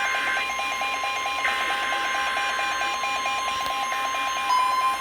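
Emergency alert tones played over the radio. A long steady tone holds over a rapid, evenly pulsing beep. Near the end a further tone starts sliding upward in pitch.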